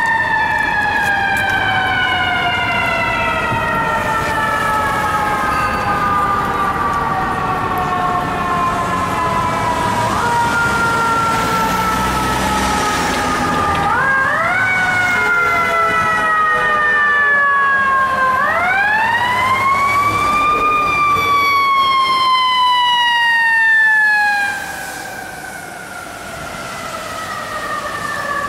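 Fire truck's mechanical siren winding down in long slow falls of pitch and wound up again several times. The last wind-up rises and rounds off before sliding back down. City traffic noise runs underneath, and the siren gets markedly quieter about three-quarters of the way through.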